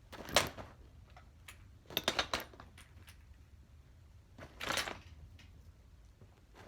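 Handling noises as a fidget toy is put into a backpack: a knock, a quick run of small clicks and rattles about two seconds in, and a short rustle a little before five seconds.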